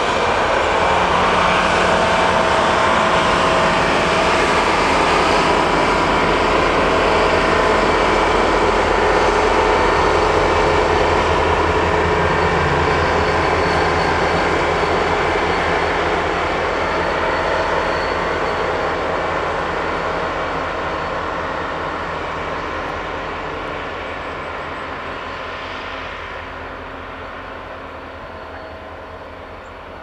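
Freight train of flatcars loaded with continuous welded rail rolling past, a steady loud rumble of wheels on the track that fades away through the second half.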